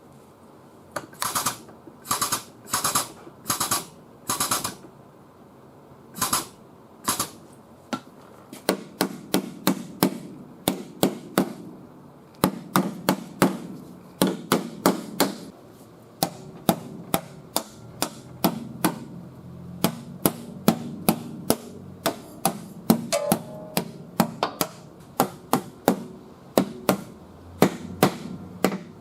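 Hammer blows on the sheet metal of a car's quarter panel, knocking down high spots while the panel is held under pull. A few separate blows at first, then steady hammering of about two to three strikes a second from about nine seconds in.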